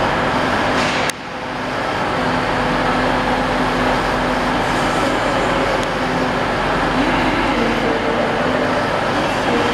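Class 175 diesel multiple unit's diesel engines running steadily at the platform, with a few steady tones in the drone. The sound drops sharply about a second in and builds back up, and a short rise in pitch comes around seven seconds in.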